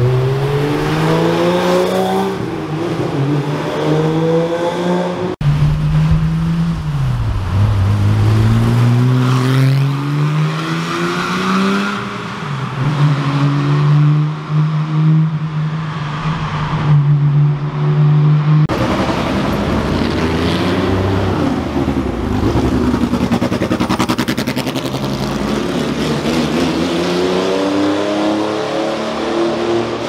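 Rally car engines accelerating and revving, pitch climbing and dropping with each gear change: first a classic Porsche 911 pulling away, then cars driving through a road tunnel, where the engine sound echoes. The sound changes abruptly about five seconds in and again about two-thirds of the way through.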